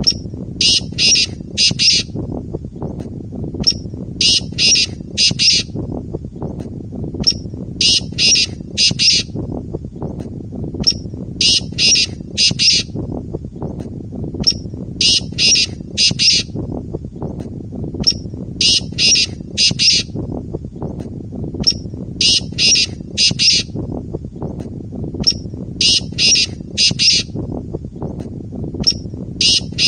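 Male black francolin calling: the same phrase over and over, about every three and a half seconds. Each phrase is a faint short note followed by three loud notes, the territorial call heard in Urdu as 'Subhan teri qudrat'. A steady low background noise runs underneath.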